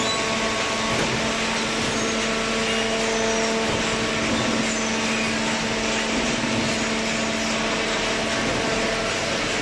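Horizontal hydraulic cardboard baler running: a steady machine hum with a constant tone over an even rushing noise.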